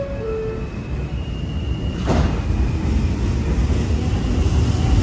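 An R160 subway car's two-note descending door chime, then the doors bang shut about two seconds in. The train's low rumble grows louder as it begins to pull out.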